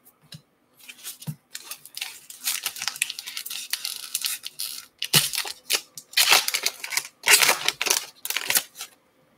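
A baseball card pack's wrapper being torn open and crinkled as the stack of cards is slid out. It makes a run of dense rustling and crinkling that is loudest in the last few seconds and stops about nine seconds in.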